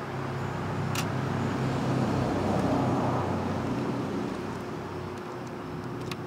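Rumble of a road vehicle passing, swelling to its loudest two to three seconds in and then fading, over a faint steady whine. Two sharp clicks, about a second in and near the end.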